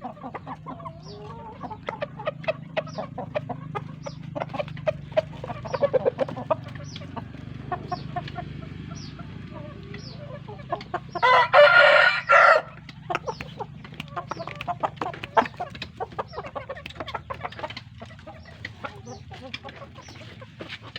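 Chickens clucking, with a rooster crowing once, loud and about a second and a half long, near the middle. Short high chirps repeat about twice a second through the first half.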